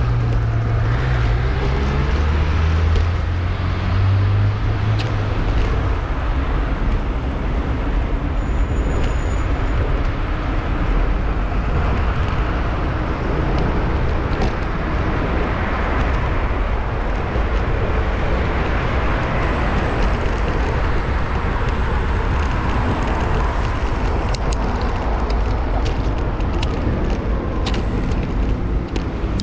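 Road traffic heard from a moving bicycle, over a steady low rumble of wind and road noise on the bike-mounted GoPro's microphone. A vehicle engine's low hum stands out for the first few seconds, and a few sharp clicks come near the end.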